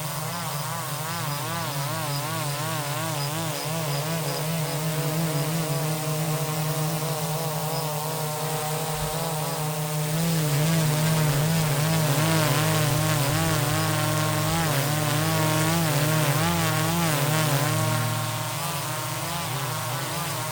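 DJI Matrice 4T quadcopter's propellers humming in flight: several rotor tones waver and beat against each other. The sound grows louder about halfway through and eases off near the end.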